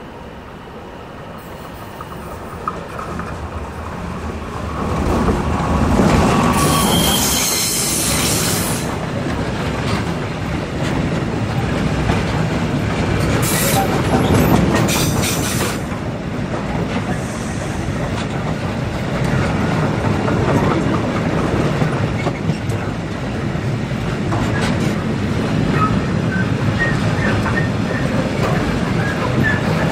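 A DB Class 187 electric locomotive and a long train of covered freight wagons approach and pass close by, growing louder over the first five seconds, then a steady rumble and clickety-clack of wagon wheels. Bursts of wheel squeal from the curved track come about seven and fourteen seconds in, with small squeal chirps near the end.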